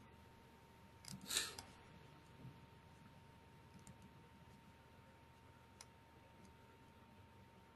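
Near silence: room tone with a faint steady tone, one brief noise about a second and a half in, and a few faint clicks.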